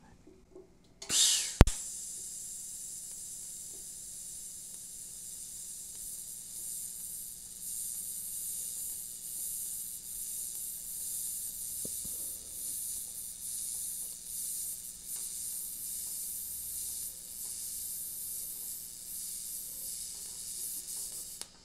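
TIG welding arc on stainless steel from a YesWelder TIG 250P set to 125 amps, no pulse. The arc strikes about a second in with a short crackle and a sharp click, then runs as a steady high hiss and cuts off suddenly near the end.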